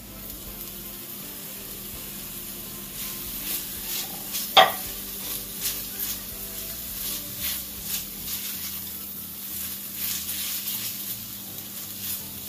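Sliced bell peppers and onion sizzling in hot oil in an enamelled pan as they are stirred, with frequent light clicks and scrapes of the stirring utensil against the pan. One sharper knock a little under five seconds in.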